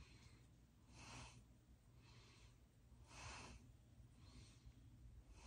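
Near silence with faint breaths, about one a second, each a short hiss of air.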